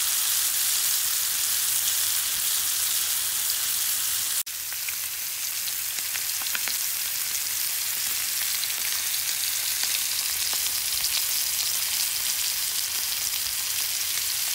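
Beef steaks sizzling in hot oil in a skillet: a steady hiss with small crackling pops. About four and a half seconds in it cuts out for an instant and comes back a little quieter.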